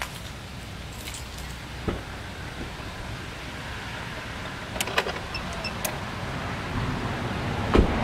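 A truck's door and ignition being worked by hand: a knock about two seconds in, a cluster of clicks about five seconds in followed by two short high chime beeps, then the door shutting with a heavy thump near the end. The key is being cycled on and off, which sets off the parasitic battery draw.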